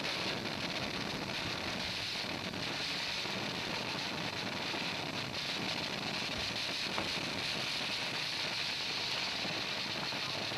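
Ground fountain of a fireworks battery spraying silver sparks with a steady hiss.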